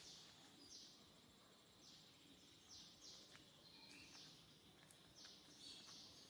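Faint outdoor background with short, high chirps repeating about every half second over a soft hiss.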